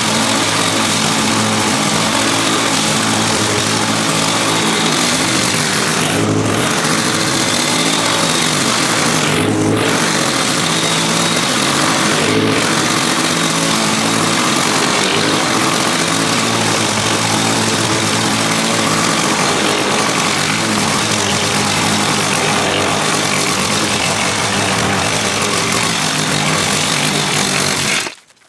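Walk-behind gas lawn mower engine running steadily under load while mowing, until the sound cuts off suddenly near the end.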